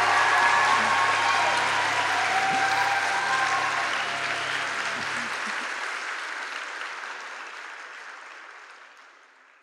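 Live audience applauding at the end of a performance, with a few raised voices over it in the first three seconds; the applause fades out steadily to silence.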